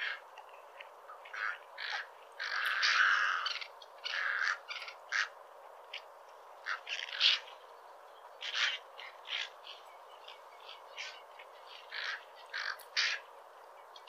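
Cattle egrets calling: a run of short, noisy calls at irregular intervals, with one longer, louder call about three seconds in.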